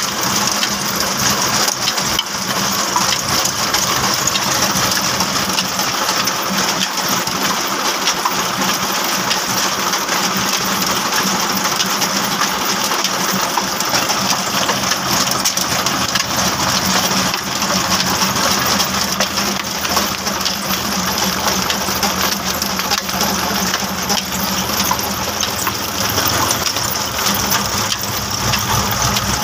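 A tractor-driven flour mill (chakki) running: the tractor's diesel engine turns a power take-off shaft and a line of flat-belt pulleys, giving a steady, dense mechanical clatter and rattle over a low, steady engine hum.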